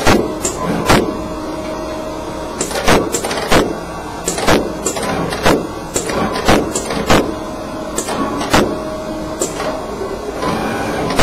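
Flatbed sample cutting and creasing table at work, its tool head running across the board with a steady motor whine. Frequent sharp clacks, about two a second and irregular, break the whine as the tools are lowered and raised.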